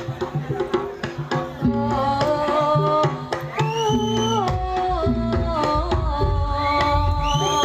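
Jaranan music: kendang hand drums beating a steady pattern under a melody that slides and bends in pitch.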